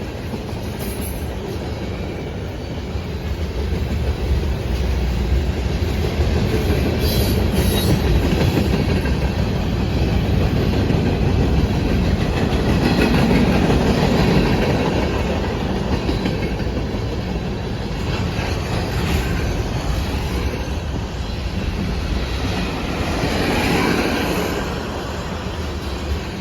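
Freight train passing at speed: a steady rumble of rolling wheels with clacking over the rails, swelling louder twice.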